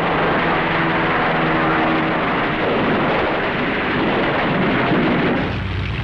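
Propeller aircraft engines droning steadily, with the sound changing to a lower hum near the end.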